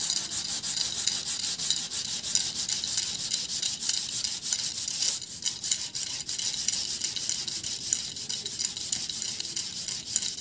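Coarse 40-grit sandpaper rubbed by hand in quick back-and-forth strokes across a steel sharpening rod made from an old file, a continuous scratchy rasping as it scours off the rust.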